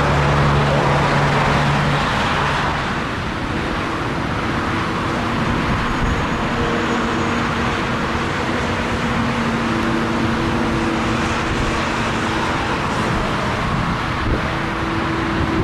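Boeing 747 freighter's four jet engines running on the runway, a steady loud rush of engine noise with several held humming tones. A lower hum in the first two or three seconds gives way to it.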